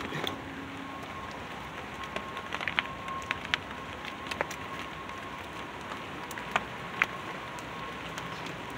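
Heavy rain falling steadily, with scattered sharp taps of drops striking nearby surfaces.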